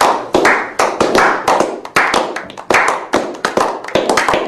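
A small group of people clapping their hands, uneven claps about three a second, each with a short trailing echo.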